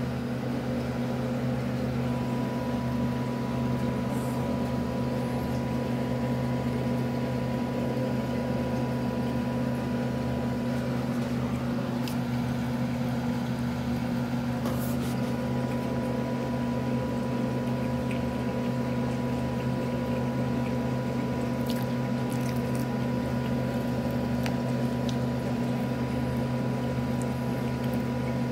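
Steady electrical hum of a running appliance motor, low and unchanging, with a thin high tone held over it and a few faint clicks now and then.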